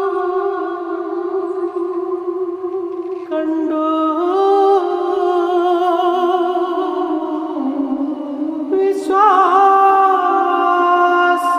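Background music: sustained, held notes that shift to new pitches about three and a half seconds in and again near nine seconds, with a wavering, gliding line over them.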